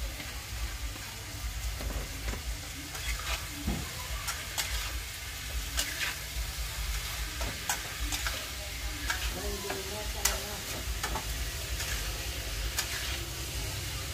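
Chopped vegetables stir-frying in a metal wok: a steady sizzle, with a metal spatula scraping and clinking against the pan many times as it tosses them.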